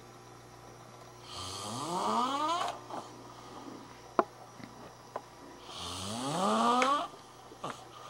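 A person snoring loudly: two long snores, each rising in pitch and growing louder before cutting off sharply. A few short, sharp clicks come in between.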